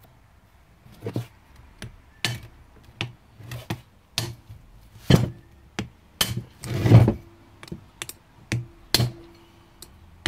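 Hammer blows on an ice pick used as a drift, knocking the shaft forward out of an antique Singer Model 12 sewing machine's seized hand wheel. The blows come steadily, about two a second, some leaving a short metallic ring, with one heavier, longer blow about seven seconds in.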